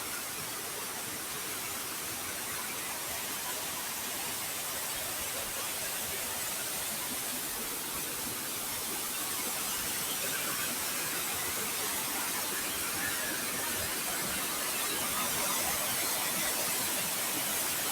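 Water gushing steadily out at the source of the Nairobi River, an even rushing hiss that grows slightly louder in the second half.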